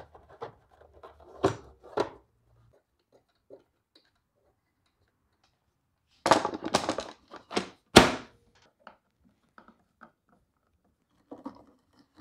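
Hard plastic covers of a DeWalt DW735 thickness planer being set and pressed into place: a string of clacks and knocks. There are two about a second and a half in, then a loud burst of them about six to eight seconds in, the sharpest one near the eighth second.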